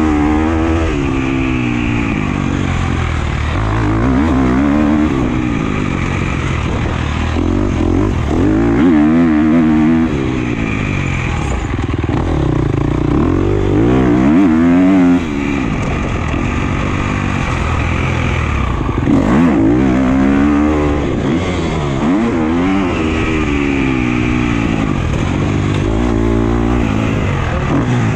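Husqvarna FC250 four-stroke single-cylinder dirt bike engine revving hard on and off the throttle, its pitch climbing and dropping back again and again through the gears.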